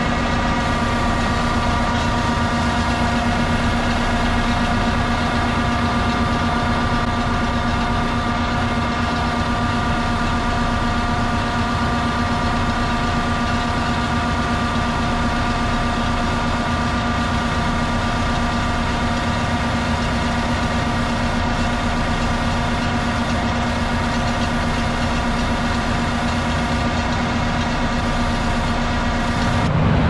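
Diesel engine of heavy farm machinery running at a steady, constant speed, a continuous hum with a steady whine over it.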